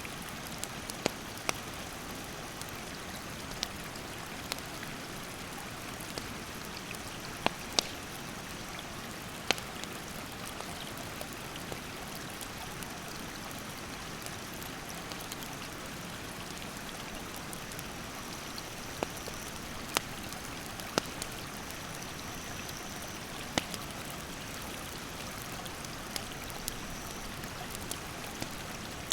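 Steady rush of a mountain stream with a wood campfire crackling over it in sharp, irregular pops, about a dozen in all. A faint high, steady insect drone sits in the background, stronger in the second half.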